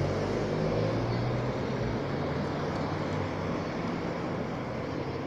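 Convoy vehicles driving past: a motor vehicle's engine hum that fades over the first couple of seconds, then a team car going by, under an even rush of road noise that slowly drops away.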